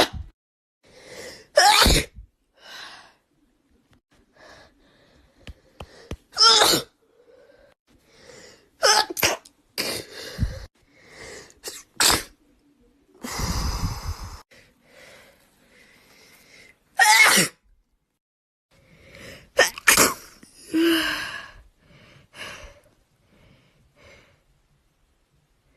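A young woman sneezing again and again from an allergy: about six loud sharp sneezes spread through the stretch, with quick gasping in-breaths and smaller sniffs and half-sneezes between them, her nose stuffed up.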